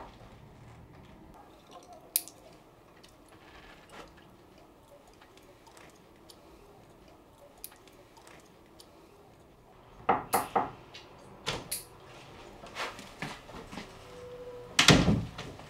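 Quiet room tone for about ten seconds, then a run of light clicks and knocks, and a single louder thump near the end.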